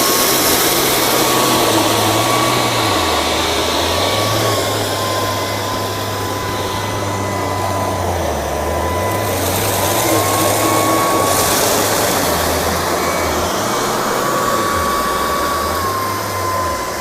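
LG R9 robot vacuum running steadily, its motor noise carrying a thin high whine that steps slightly up and down in pitch a few times, with a low hum shifting along with it.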